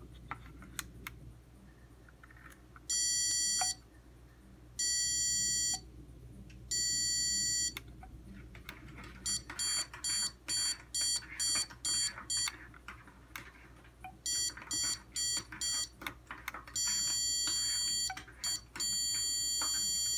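The buzzer on a Zircon stud-sensor circuit board beeps as a hand nears its sensing plate, the hand detected as the sensor would detect a stud. It gives three high-pitched beeps of just under a second each, then runs of short quick beeps about three a second, then longer steady tones near the end.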